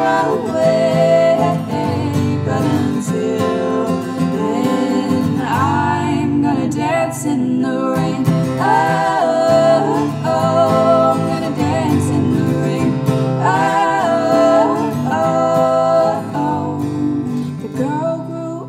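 Acoustic guitar playing a steady accompaniment, with layered vocal harmonies sung over it in long, gliding notes.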